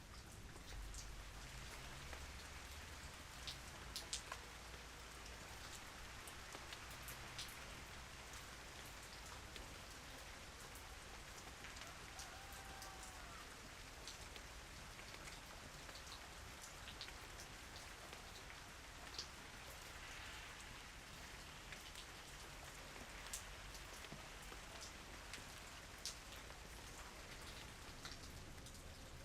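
Calm rain falling steadily, with a scattering of individual drops ticking through it and a few louder single drops now and then.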